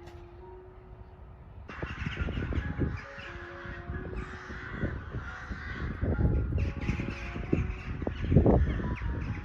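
Birds calling outdoors, a harsh crow-like cawing chatter that starts about two seconds in and carries on, with low rumbling beneath it. Soft background music plays underneath.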